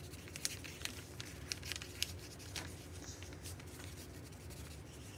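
Handwriting on paper: a run of short, irregular scratchy strokes, over a faint steady low hum.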